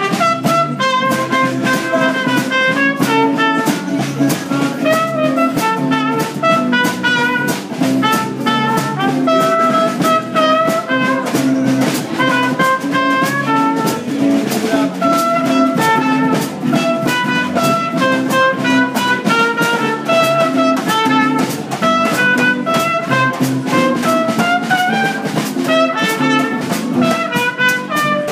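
Small jazz combo playing: a trumpet carries a stepping melody over guitars and a steady drum beat.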